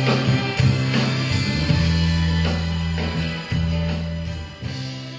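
Live country-rock band playing an instrumental passage: electric guitars over held bass notes and drums. The music fades down toward the end.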